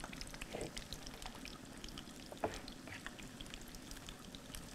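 Faint crackle of food frying in hot oil in a pan, many tiny scattered ticks over a soft hiss, with a light knock about two and a half seconds in.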